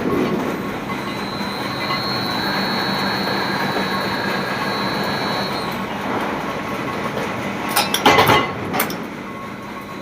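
Steady mechanical rumble with a thin high whine for a few seconds, then a cluster of sharp knocks about eight seconds in.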